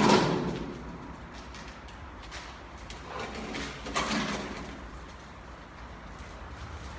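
Clanks and scrapes of a heavy salvaged car body part, its window glass still in place, being handled out of the water. The loudest knock comes at the start and dies away over about a second, with smaller knocks around three and four seconds in.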